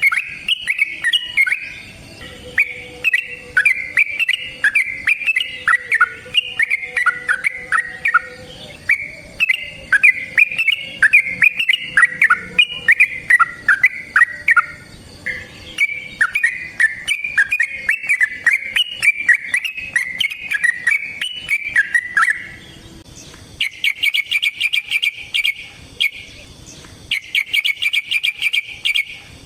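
Yellow-vented bulbul (trucukan) singing a long, bubbly run of quick warbled phrases. About 23 seconds in, it switches to bursts of very rapid, chattering repeated notes.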